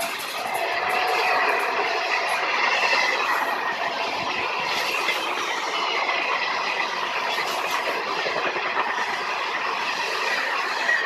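Passenger coaches of an Indian Railways express train rolling past at speed: a steady heavy rumble of wheels clattering over the rail joints, with a thin high squeal from the wheels.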